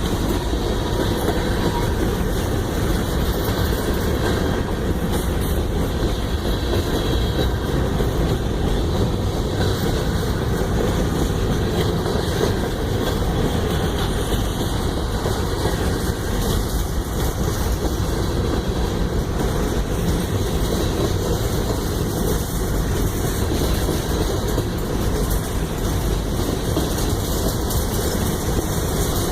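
A train rolling past: a steady, unbroken rumble of railroad cars running over the track, strongest in the low range, with no horn.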